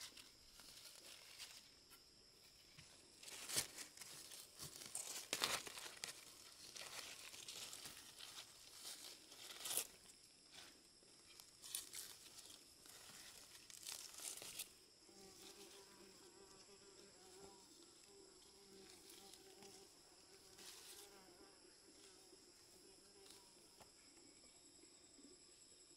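Rustling and crackling for the first half, then a fly buzzing close by with a wavering drone, over a steady high-pitched whine of insects.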